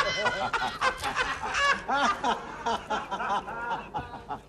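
Studio audience laughing, many high-pitched cackling laughs rising and falling together, dying down near the end.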